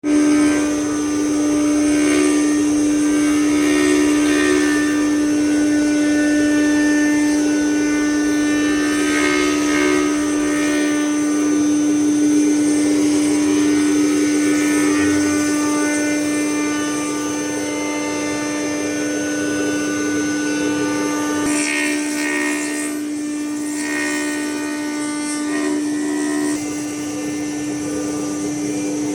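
4-axis CNC router carving wood: the spindle runs with a steady hum while the cutter's noise against the wood swells and fades as the tool moves.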